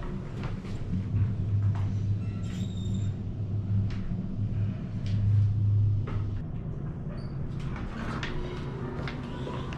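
A steady low hum or rumble that is strongest for the first six seconds or so, with scattered clicks and knocks on top.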